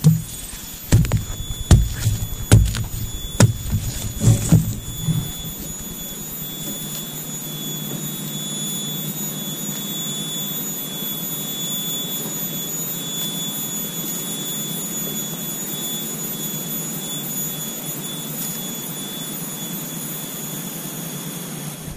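Digging strikes into soil, about seven in the first five seconds. Then a steady hiss with a thin high whine for the rest.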